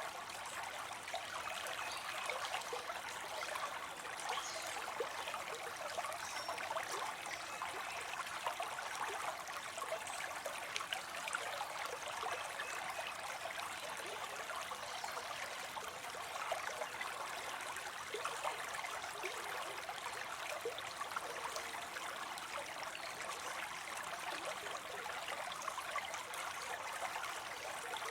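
Small cascade of water spilling into a pond: a steady splashing and trickling with many small droplet flecks.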